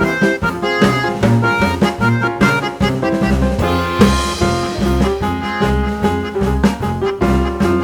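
Background music: an upbeat jazz-style instrumental with a steady bass and drum beat and horn-like melody notes, with a cymbal crash about four seconds in.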